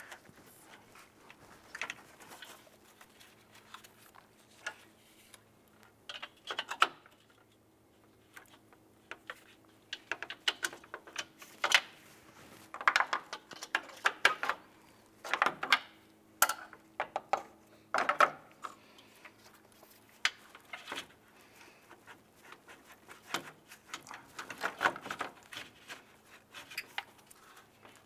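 Intermittent clicks, clatters and knocks of plastic lock clips and parts being worked by hand as a Ford Fiesta's radiator is pried and lifted free of the A/C condenser, under a faint steady hum.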